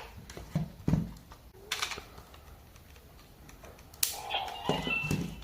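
A Dark Zero Ultra Capsule toy being handled, with a few sharp plastic clicks and knocks in the first two seconds. About four seconds in, a short electronic toy sound effect starts.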